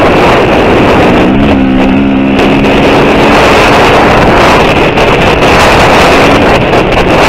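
KTM 350 EXC-F's single-cylinder four-stroke engine running hard under throttle, its pitch climbing a little about a second in, with heavy wind noise on the helmet-mounted microphone.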